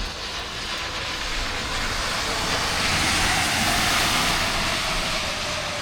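A vehicle passes, its hissing tyre noise swelling to a peak about three or four seconds in and then easing off. Under it, a distant air-raid siren holds a faint steady tone that sinks slightly in pitch.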